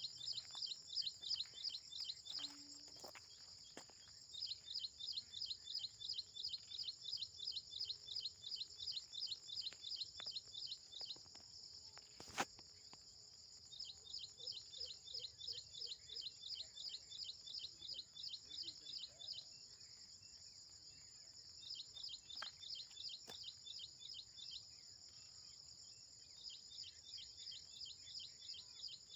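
Outdoor insect and bird chorus: a continuous high insect drone underneath bouts of rapidly repeated high chirps, about three a second, each bout lasting several seconds with short pauses between. A single sharp click about twelve seconds in.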